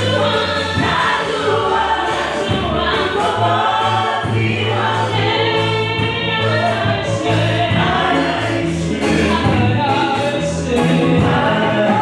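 Gospel choir of men and women singing into microphones in a worship song, over steady low bass notes of the accompaniment.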